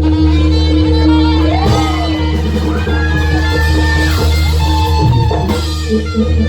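Campursari band playing live: steady held notes under a melody that slides up and down in pitch.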